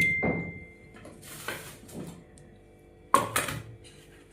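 Kitchen utensils and dough being handled: a clink with a short ringing tone at the start, some soft scraping, and a louder knock about three seconds in.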